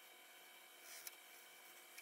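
Near silence: faint room tone with a steady low hum, broken by a soft brief scrape and a single tick about a second in.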